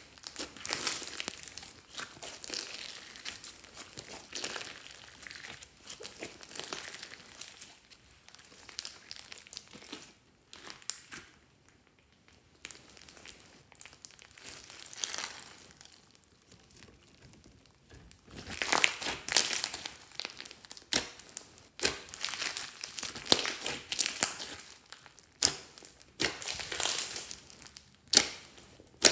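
Glittery slime full of foam beads being kneaded and squeezed by hand: irregular squishing and crackling, quieter for several seconds in the middle and busier over the last ten seconds.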